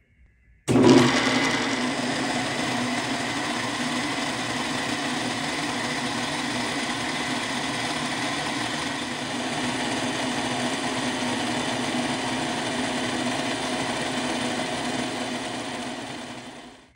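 End mill on a vertical milling machine taking a facing cut across a metal block, squaring the last face. It is a steady machining sound with a held high tone, starting abruptly about a second in and fading out near the end.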